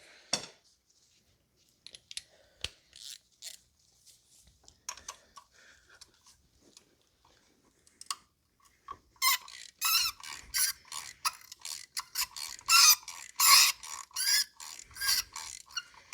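Hand ratchet on a spark plug socket and long extension, clicking as a spark plug is worked loose. A few light clicks and tool handling come first; from about nine seconds in there is a steady run of ratchet strokes, about two a second.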